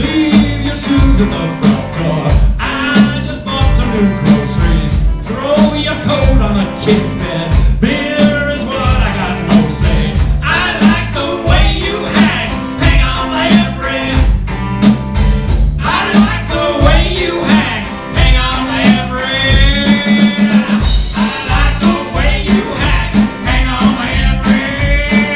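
A live band playing a song with a steady beat: violin, upright bass and electric guitars, with a man singing lead.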